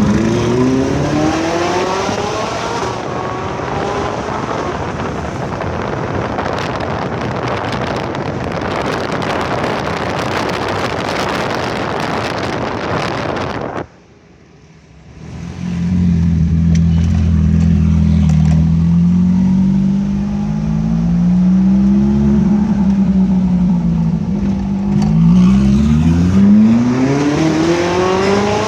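Ferrari 458 Italia's 4.5-litre V8 revving up with a rising pitch, followed by a loud rushing noise. The sound drops out abruptly about 14 seconds in, then the engine returns at low revs with a steady, slightly wavering drone and revs up again near the end.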